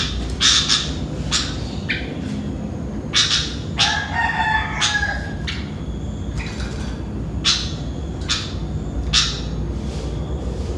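Sooty-headed bulbul (kutilang) giving a string of short, sharp calls every half second to second. A rooster crows once in the background about four seconds in, over a steady low rumble.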